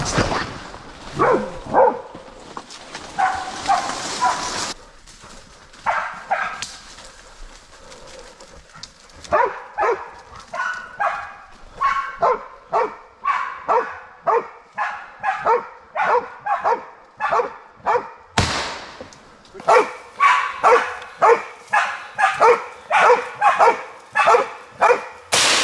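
Pig-hunting bailing dog barking steadily, about two barks a second and louder in the second half: the dog is holding a stopped wild boar at bay.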